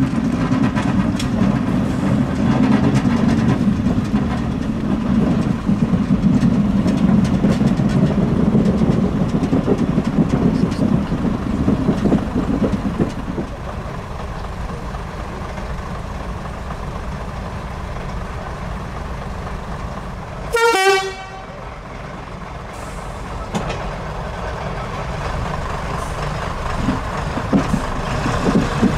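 A British Rail Class 101 diesel multiple unit's underfloor diesel engines running under power as the train approaches slowly, dropping back to a quieter note at about 13 seconds as power comes off. About 21 seconds in there is a brief loud tone that falls quickly in pitch.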